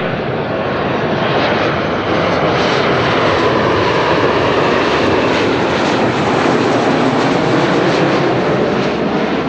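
Jet airliner passing close, its engines a loud, steady roar that swells a little in the first few seconds and holds.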